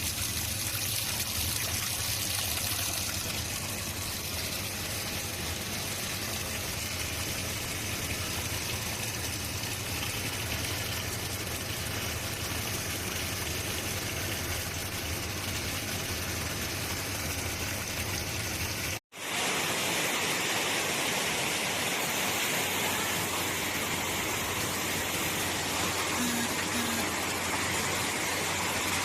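Water rushing steadily into a Toshiba washing machine tub through its water inlet valve as it fills. It drops out for an instant about 19 seconds in, then carries on with more hiss.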